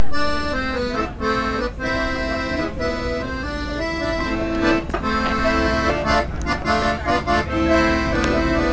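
Piano accordion playing a tune: melody notes stepping up and down over held chords.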